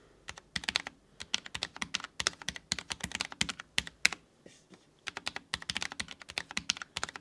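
Typing a full sentence on a Cherry MX-LP 2.1 keyboard with low-profile Cherry MX Speed switches: quick, light key clicks in fast runs, with a brief pause about four seconds in.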